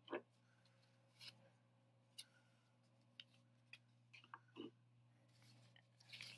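Near silence with a few faint, scattered clicks and soft rustles of a folded sheet of paper being handled and unfolded, over a faint steady low hum.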